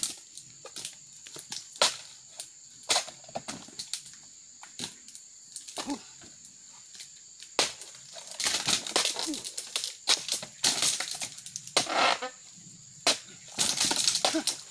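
Sharp chops of a long-handled pruning chisel (dodos) striking oil palm frond bases, one every second or two, with longer stretches of rustling palm fronds in the second half.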